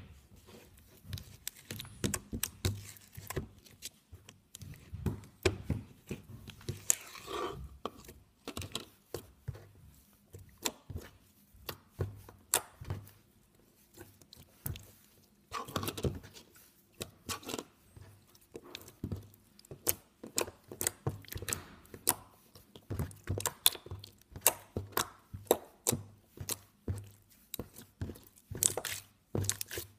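Handmade clicky slime being poked, squeezed and stretched by hand, making irregular sharp clicks and pops.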